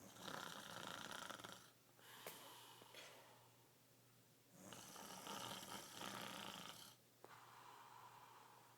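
A sleeping man snoring: two long, loud snoring breaths about four and a half seconds apart, with quieter breathing between them.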